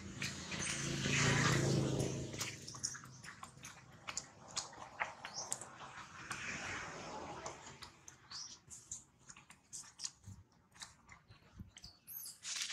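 A young long-tailed macaque chewing food, heard as irregular close clicks and smacks. A low hum swells and fades over the first three seconds and is the loudest sound.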